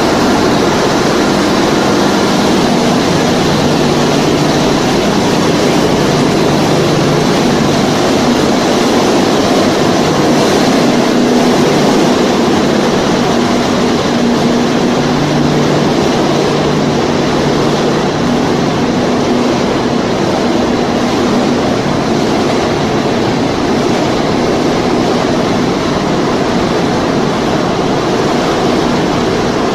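Snack-pellet production line machinery running: a steady, loud whir of motors and fans with a low hum that grows stronger now and then.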